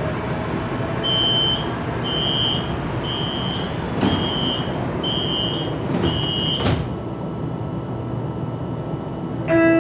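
Door-closing warning on a CSR Zhuzhou LRT train: six short high beeps about a second apart, and the sliding doors shut with a thump at the last beep, over the steady hum of the stationary train. A multi-note chime begins near the end.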